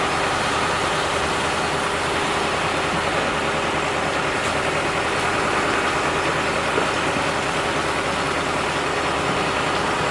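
Septic vacuum truck running steadily, its engine driving the vacuum pump as it sucks out a septic tank: a constant even drone with no change.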